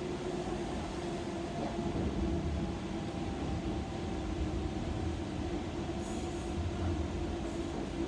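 Docklands Light Railway train running along its track, heard from inside the front of the car: a steady rumble of wheels on rail with a steady hum over it.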